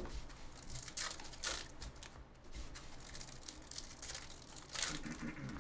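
Trading-card pack wrappers crinkling and tearing as packs are opened by hand, with the cards handled between the fingers. It comes as a series of short rustles, the loudest near the end.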